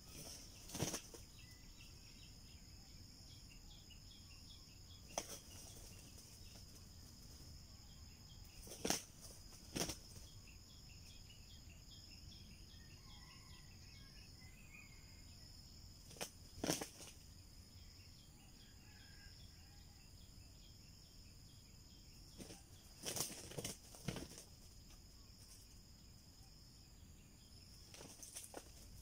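Steady insect chorus of high, even buzzing tones with a faint rapid ticking under it, broken about eight times by short sharp rustles or thumps.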